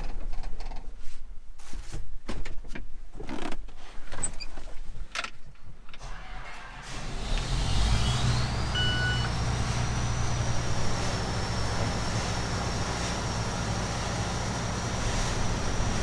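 Knocks and clicks from someone settling into a John Deere combine cab. About seven seconds in, the combine's diesel engine starts and settles into a steady idle, with a whine that rises and levels off to a high steady tone. A short electronic beep sounds just after the start.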